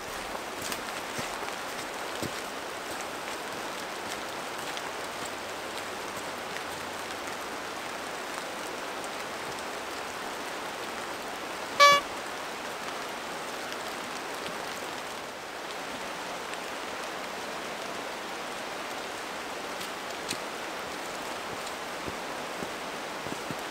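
Steady, even hiss of water noise, like rain on wet foliage or a distant stream. One short high beep about twelve seconds in, and a few footsteps on the trail near the end.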